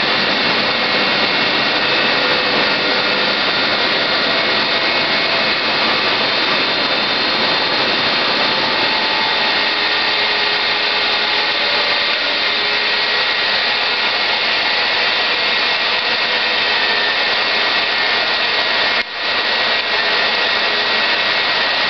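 BSL 204 foam-cutting machine running steadily with a continuous loud mechanical whir and a few faint steady high tones. Its sound dips briefly near the end.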